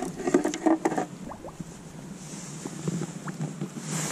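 Lake water splashing at the surface, with several sharp splashes in the first second, then gentle lapping and light wind on the microphone.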